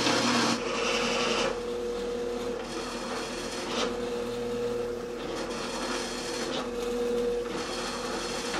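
A benchtop drill press runs with a steady motor hum while its 5/8-inch bit bores through a plywood disc. Over the hum comes a rough cutting sound that swells and eases as the bit is fed, strongest in the first half-second.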